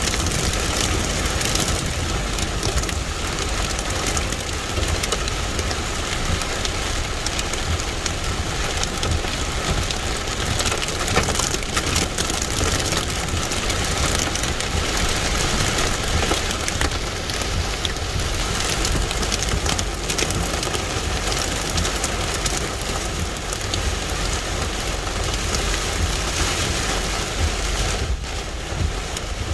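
Hail and heavy rain pounding on the roof and windshield of a stopped car, heard from inside the cabin as a steady, dense patter of hits.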